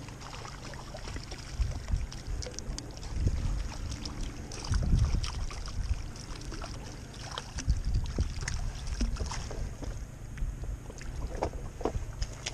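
Wind buffeting the microphone in uneven low gusts, with scattered light clicks and rustles.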